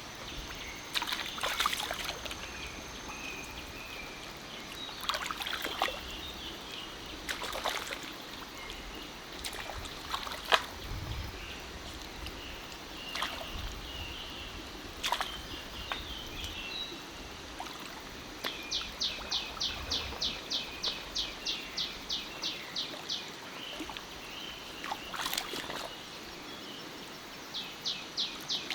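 Forest stream trickling, with scattered splashes and knocks in the water, and birds calling. Past the middle comes a quick run of high chirps, about four a second, lasting some five seconds.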